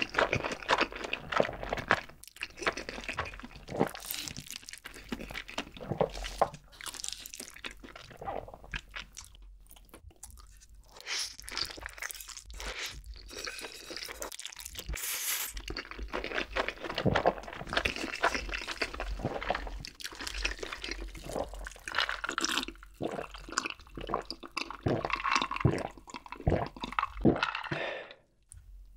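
Close-miked mouth sounds of eating creamy spicy instant noodles (cream carbonara Buldak fire noodles): wet chewing and slurping, coming on and off in irregular bursts. The sounds drop away just before the end.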